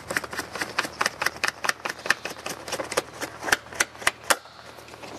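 Rapid, irregular small clicks and knocks as the gyroplane's rear seat is unlatched and handled, stopping about four and a half seconds in.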